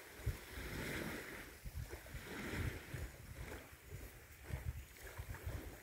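Faint outdoor ambience: wind rumbling on the phone's microphone in uneven gusts, with a soft hiss.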